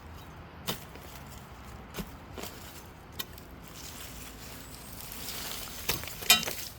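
Rustling with a few sharp knocks and scrapes as a clump of rumput repair is dug out of the soil. A hissy rustle swells about five seconds in, and the loudest knock comes near the end.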